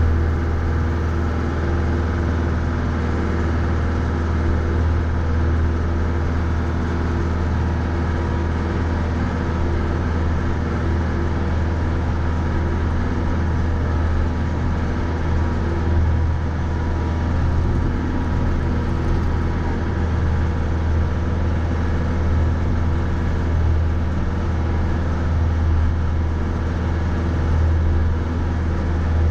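Mahindra 3550 50 hp diesel tractor engine running steadily under load while plowing snow, a constant low drone with no breaks or sudden knocks.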